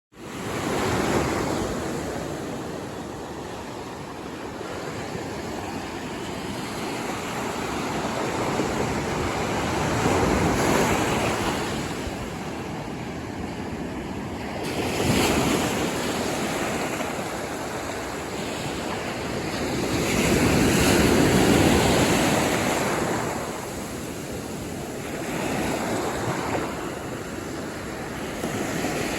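Ocean surf breaking and washing up on a sandy beach, a steady rush of water that swells several times as waves come in, loudest about two-thirds of the way through.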